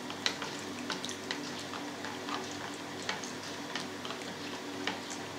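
Light, irregular clicks of a spoon against a plastic jug as thin sour-cream sauce is poured and scraped out of it into a baking dish, over a faint steady hum.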